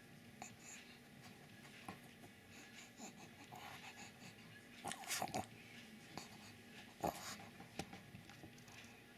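Pug breathing wheezily with snuffles, and two short, louder snorts about five and seven seconds in.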